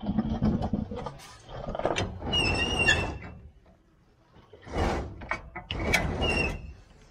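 Manure spreader's floor chain being dragged by hand: bursts of scraping and rustling with two short metallic squeals, one about two and a half seconds in and one near the end.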